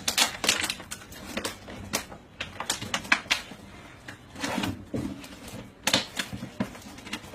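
Irregular clicks and taps, a rapid run of sharp, dry impacts, with louder knocks right at the start and about six seconds in.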